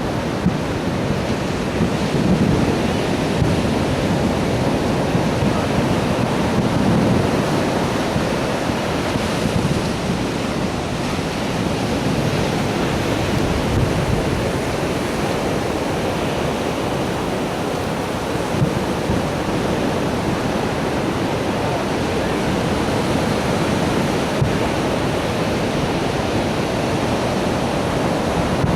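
Steady rushing noise of surf and wind buffeting the microphone, with a few faint short pops.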